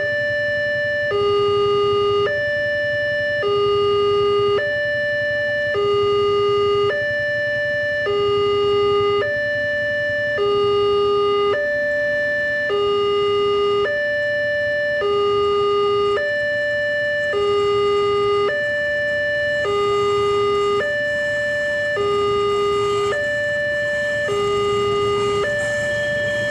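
Railway level-crossing warning alarm sounding its two-note chime, a lower and a higher tone alternating evenly about once a second. It signals that the crossing is closed with the barrier down.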